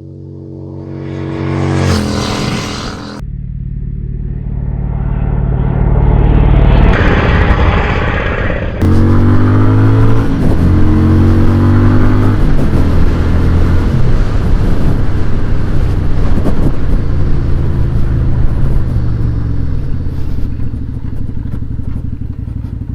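Shineray Denver 250's V-twin engine accelerating: its pitch climbs twice in the first eight seconds, breaking off abruptly each time. It then settles into a steady run with a strong noisy hiss over it, slowly easing off near the end.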